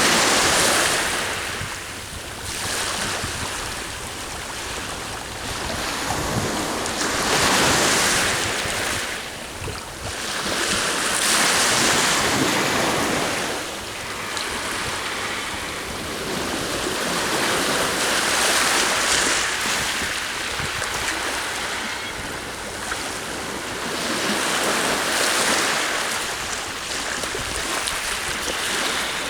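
Sea waves breaking and washing up the shore, the surf swelling loud every several seconds and easing between, with wind blowing across the microphone.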